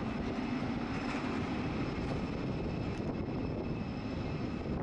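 Steady jet aircraft noise carrying across the airport apron: a low rumble with a thin, even high whine, unchanging throughout.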